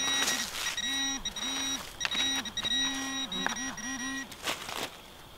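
Electronic tones from metal-detecting gear sounding over a buried metal target: a steady high beep held for about four seconds, with a low warbling tone pulsing on and off beneath it about eight times. Short scrapes of a hand digger cutting into the soil come in between.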